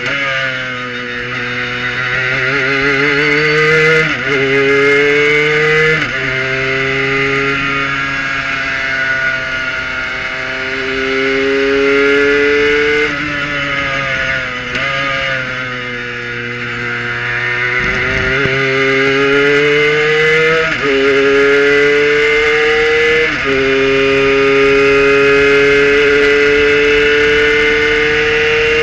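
Kohler-powered Prototype 1 race car's engine heard from the cockpit, pulling hard through the gears. Its pitch climbs and drops back at each upshift, falls briefly midway as the car eases off, then climbs again.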